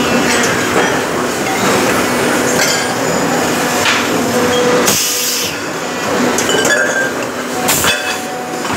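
Steady mechanical rumble and clatter with metallic clinks and knocks scattered through it.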